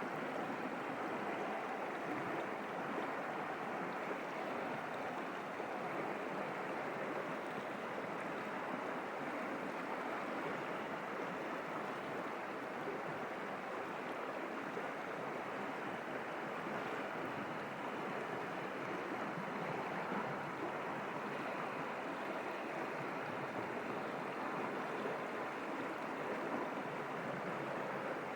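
Small forest stream flowing over rocks, a steady even rush of water.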